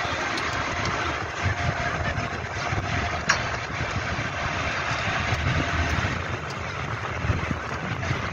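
A large engine running steadily with a low rumble; a single sharp click sounds about three seconds in.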